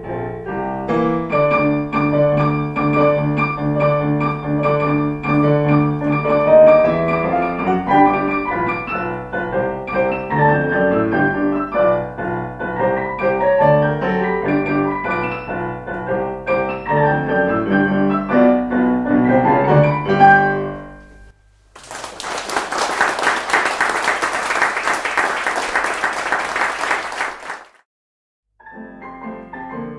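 A piano piece played to its close, the last chord dying away about two-thirds of the way through, followed by an audience applauding for about five seconds. After a brief silence, piano playing starts again just before the end.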